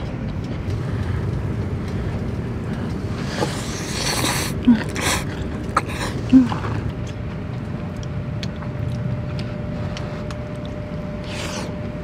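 People eating at a table: scattered light clicks of chopsticks and spoons, with a few loud breathy puffs and short grunts in the middle, over a steady low rumble.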